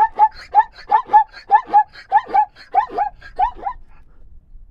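Zebra barking: a quick run of high, yelping calls in two-note pairs, about two pairs a second, stopping shortly before the end.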